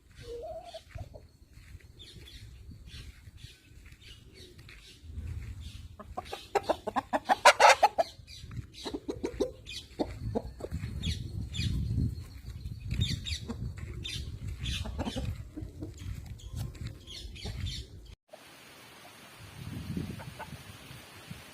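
Parrot-beak aseel cocks clucking, among scattered taps and rustles. The loudest run of clucks comes about seven seconds in.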